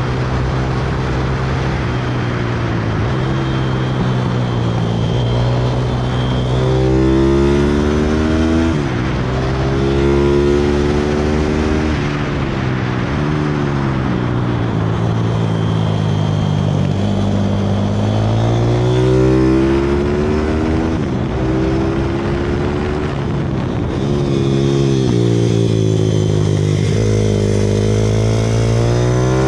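Pit bike engine at full run on a track, revving up hard and dropping back again and again as the rider shifts and brakes for corners. The engine note climbs in sweeps and falls off sharply several times.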